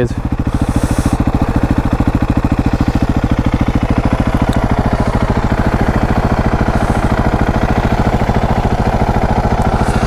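Husqvarna 701's big single-cylinder four-stroke engine idling steadily, heard close to its air intake. The firing pulses come evenly and stay at the same speed and level.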